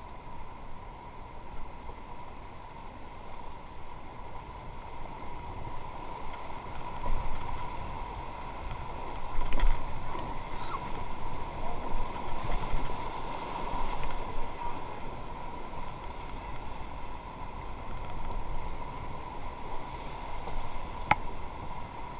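Rushing whitewater around a raft in rapids, with wind on the microphone, swelling louder in the middle; a couple of sharp knocks stand out.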